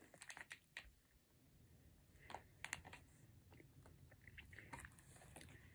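Near silence broken by faint, scattered crinkly clicks of hands handling cards and paper. They come in small clusters within the first second, around two and a half to three seconds in, and again near the end.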